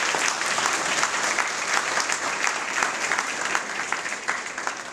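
Audience applauding: many people clapping their hands together.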